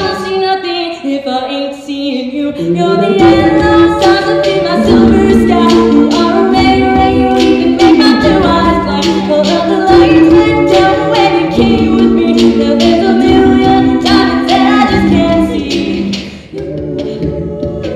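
Female a cappella group singing in close harmony through microphones, with a steady vocal-percussion beat of about two strokes a second. A low sung bass line comes in about three seconds in.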